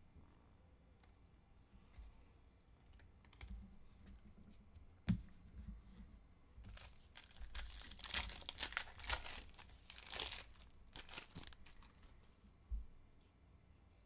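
Foil wrapper of a trading-card pack being torn open and crinkled by hand, most of it from about seven to ten seconds in. A single sharp knock about five seconds in is the loudest moment.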